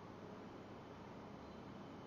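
Faint steady hiss of room tone and microphone noise, with a thin, faint high whine coming in near the end.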